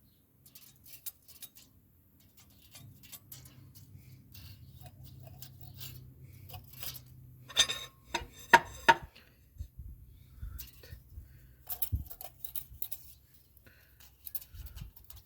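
Light metallic clicks and clinks of tools and engine parts being handled, with a cluster of sharper knocks about eight seconds in and another near twelve seconds, over a faint low hum.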